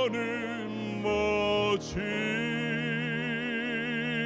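Classically trained male singer singing a Korean song into a microphone over sustained instrumental accompaniment. He sings a phrase, breaks briefly about two seconds in, then holds one long note with a wide vibrato.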